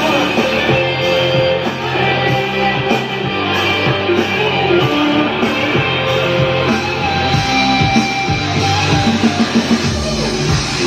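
Guitar-based rock music played through a repaired DIY power amplifier and its speakers on a playback test.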